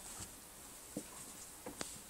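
Faint taps and clicks of a kitten's paws and claws on a wooden step: one about halfway through, then two in quick succession near the end.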